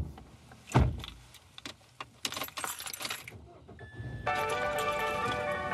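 Two dull thumps, then a jangle of keys about two seconds in. Music with a melody starts about four seconds in.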